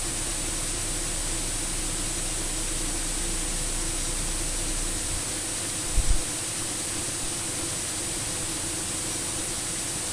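Steady in-flight cockpit noise of a Cessna 208B Grand Caravan turboprop, heard through the cockpit audio feed as an even hiss with a faint hum. A brief low double thump comes about six seconds in.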